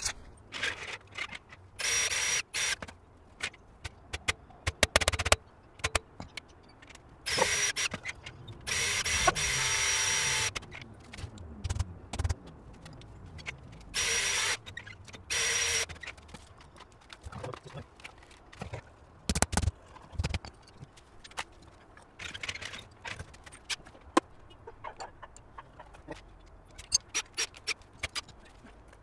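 Cordless drill running in about five short bursts of half a second to two seconds each, the longest about nine seconds in, with clicks and knocks of handling in between.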